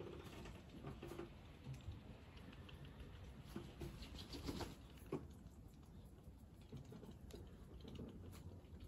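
Faint rustling and light pattering in dry leaf litter as ducks shift about in the pen, with a cluster of quick soft clicks about four to five seconds in.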